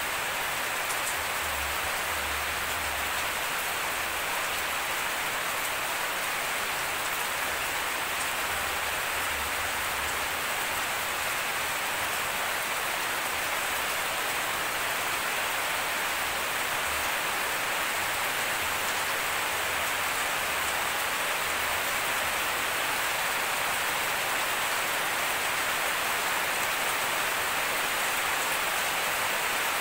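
Steady rain falling on a lawn, trees and garden plants: an even, unbroken hiss of raindrops.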